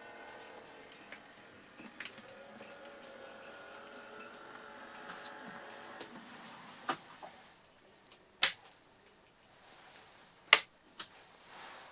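Model Class 03 diesel shunter running, its small electric motor whining with several steady tones that die away as it stops. Four sharp clicks follow in the second half, the two loudest about two seconds apart.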